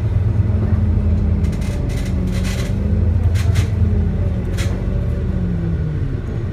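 Otokar Kent C12 city bus heard from inside the cabin while under way: its diesel engine drones steadily, its pitch easing down near the end, with a few brief hissing rattles in the middle.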